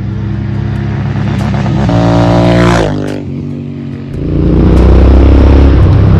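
Royal Enfield Interceptor 650's parallel-twin engine and exhaust on the move, throttle eased: the note wavers, steps up about two seconds in, then falls away sharply and goes quieter. It picks up again about four seconds in and runs loud and rising as the bike accelerates.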